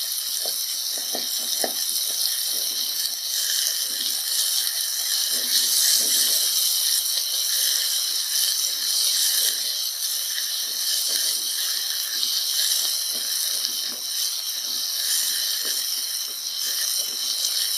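Chopped tomatoes, peanuts and onions frying in oil in a pan over high heat: a steady sizzle, with soft irregular knocks throughout.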